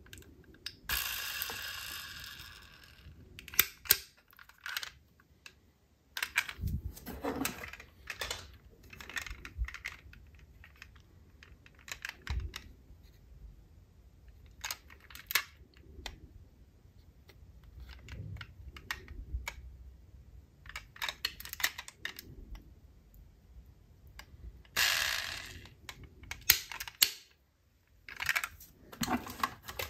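Die-cast toy cars being handled: many short clicks and taps of small metal and plastic parts being picked up and set down, with two longer stretches of noise about a second in and again near the end.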